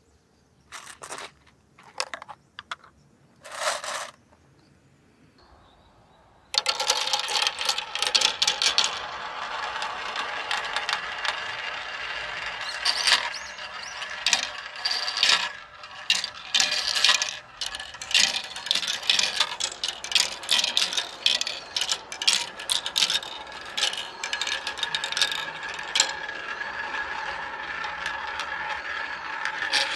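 Marbles rolling and clattering through a plastic marble run's funnels and chutes. There are a few separate clicks at first, then from about six seconds in a continuous rattling roll full of quick clicks as the marbles circle the funnels and drop through the tracks.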